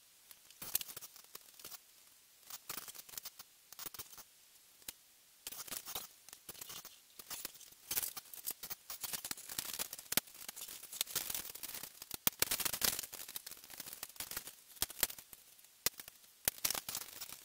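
Small plastic parts of a hydraulic hand kit clicking and snapping together as they are handled and assembled, mixed with paper rustling from the instruction sheet. The clicks come irregularly throughout, with denser rustling in the middle stretch.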